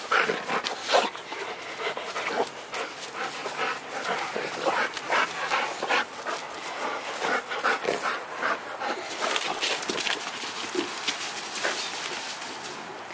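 Rottweiler panting in quick, irregular breaths, worked up with excitement over a ball; the breaths thin out over the last few seconds.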